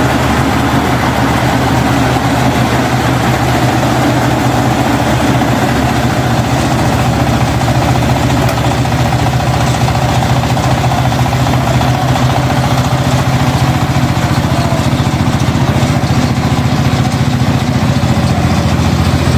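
Combine harvester engine running steadily at idle.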